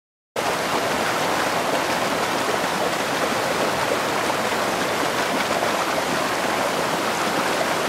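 Mountain stream cascading over rocks: a steady rush of falling water that starts abruptly just after the beginning.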